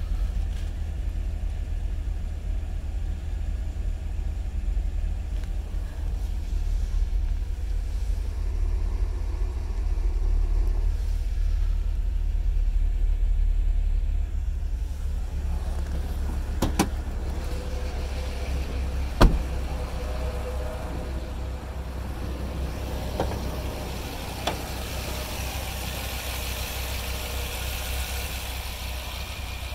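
Dodge Ram SRT-10's 8.3-litre Viper V10 idling steadily with a low rumble. A few sharp clicks sound in the second half, the loudest about 19 seconds in.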